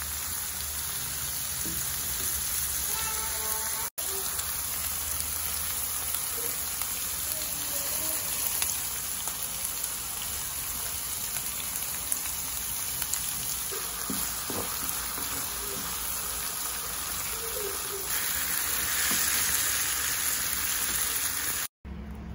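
Chopped shallots, garlic and tomato frying in oil in a non-stick wok, a steady sizzle as they are stirred with a plastic spatula. The sizzle grows louder near the end.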